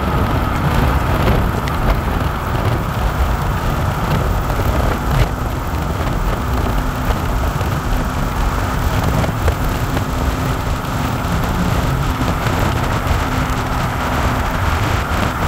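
Steady road and wind noise inside a moving pickup truck at speed, a loud rushing rumble with a faint steady hum joining about halfway through.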